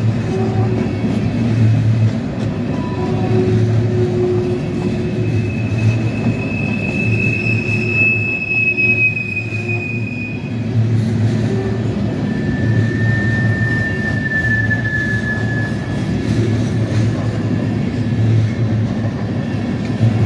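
Empty coal hopper cars of a freight train rolling past on the rails in a steady rumble with a repeating beat from the wheels. Wheels squeal twice on the curve: a high squeal from about six to ten seconds in, then a lower one from about twelve to fifteen seconds.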